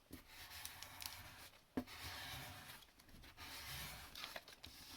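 A scraper rubbing over vellum glued onto card, smoothing it flat: a few faint scraping strokes, with a small tick about two seconds in.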